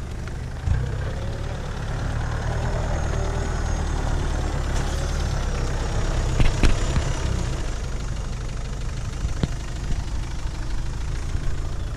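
Mitsubishi L200 pickup's engine running steadily at low revs as the truck crawls through deep mud ruts, with a few sharp knocks a little past halfway.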